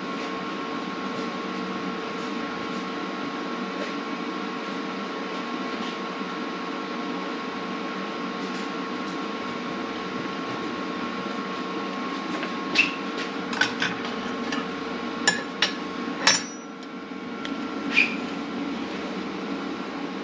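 Steady mechanical hum of shop equipment, with a run of sharp metallic clicks and knocks in the second half as tools and the welding setup are handled; partway through the knocks, one tone of the hum cuts out.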